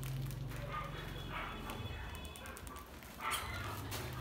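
Rats crowded in a metal box trap, squeaking faintly and scrabbling against the metal, with one louder short call about three seconds in. A low hum drones underneath, stopping partway through and starting again near the end.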